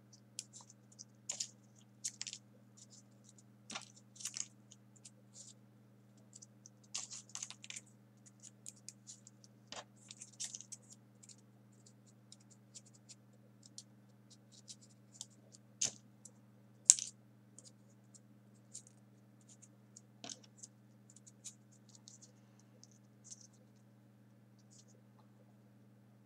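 Small folded printer-paper 3D origami pieces being pushed into one another by hand: irregular soft paper clicks and scratches, with a faint steady hum beneath.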